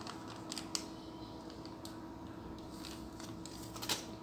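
Faint handling noise: a few light clicks and crinkles of a small plastic zip bag being handled in the first second and once more near the end, over a low steady hum.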